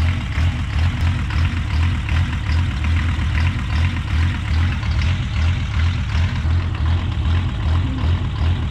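Mercedes OM617 five-cylinder diesel engine idling with a steady rhythmic chug, being run up to temperature to check whether the resealed cooling system still leaks.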